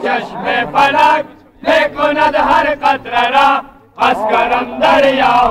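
A man chanting a noha, a Shia mourning lament, in long sung phrases with two short breaks for breath.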